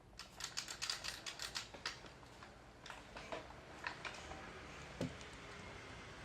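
Light mechanical clicks from handling a GHK OTS-14 gas blowback airsoft rifle: a quick run of about a dozen clicks in the first second and a half, then a few scattered clicks and a duller knock about five seconds in.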